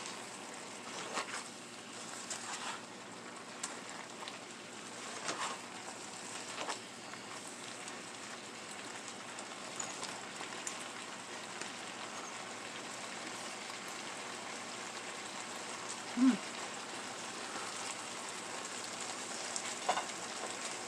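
Potatoes and mushrooms cooking in a pot with a steady sizzling hiss, with a few light utensil clicks and one short knock about 16 seconds in.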